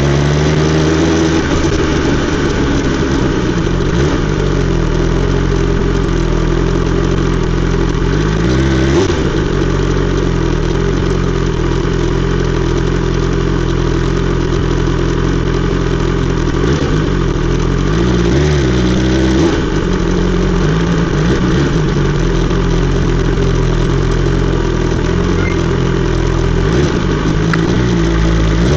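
BMW S 1000 XR inline-four engine running through an Akrapovic exhaust, its note holding steady for long stretches and dipping and rising in pitch near the start, about nine seconds in, and again around seventeen to nineteen seconds in.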